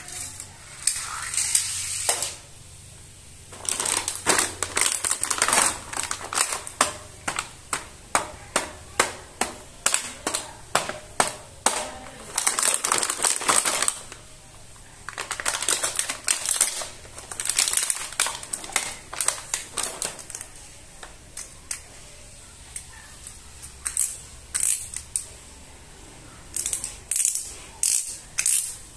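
Small plastic toy cars being pressed and pushed along a tabletop, with spells of rapid clicking and rattling, mixed with the crinkle of the plastic blister packaging being handled.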